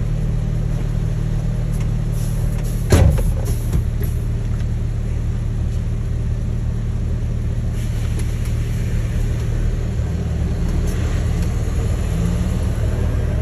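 Volvo truck's diesel engine idling steadily, heard inside the cab as a low hum. A single loud thud about three seconds in.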